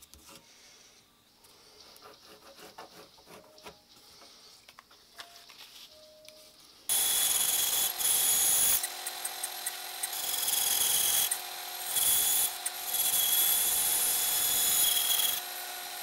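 Bandsaw cutting a thin wooden board: a loud, steady whirring with a whine that starts suddenly about seven seconds in, its loudness dropping and coming back several times. Before it, faint rubbing and tapping of hands handling wood on a bench.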